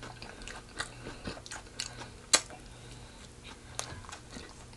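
A person chewing and biting fried chicken close to the microphone: soft, scattered crunches and wet mouth clicks, with one sharper crunch a little past the middle.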